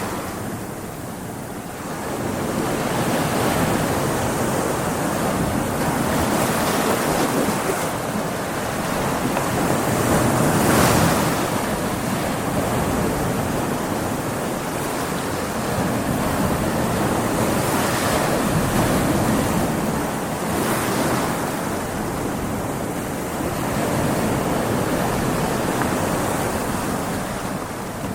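Stormy sea: waves breaking and surging in a continuous rush, swelling and easing every few seconds, with a bigger surge about eleven seconds in, and wind.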